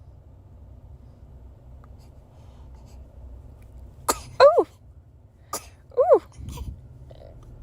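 Two sneezes about a second and a half apart, each a sharp burst of breath followed by a short, squeaky pitched note, over a low steady hum.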